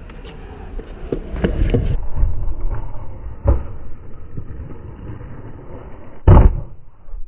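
Skateboard session: rolling noise with a few knocks, then one loud slam about six seconds in, likely the board or rider hitting the ground.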